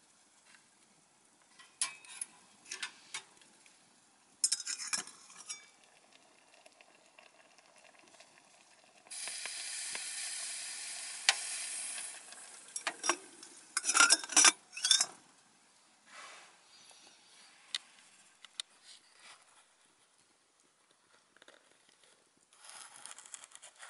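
Metal spoon stirring and clinking against a steel mug, with a cluster of louder clanks just after the middle. Midway a steady sizzling hiss runs for about three seconds, and later only faint ticks from the wood fire burning in the small camp stove.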